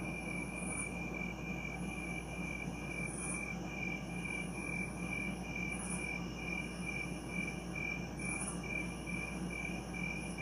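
Night-time crickets sound effect: steady, rapid chirping, with a higher, fainter insect trill that swells every couple of seconds.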